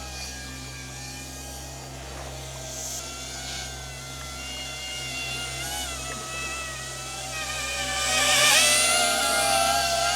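DJI Avata 2 quadcopter's motors and propellers whining, their pitch wavering with the throttle, growing louder over the last couple of seconds as the drone comes in close.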